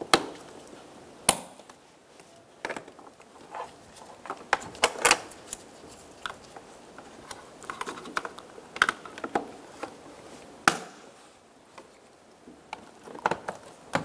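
Plastic wiring-harness connectors being pushed into the door's electrical plugs, giving a series of sharp, irregularly spaced clicks and knocks with faint handling noise between them.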